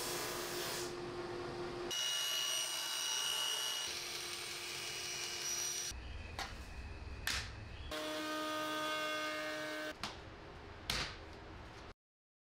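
Workshop power-tool sounds cut together in pieces of about two seconds each: steady machine hums and whines, some with a high whistle, broken by a few short sudden whooshes, then cutting to dead silence near the end.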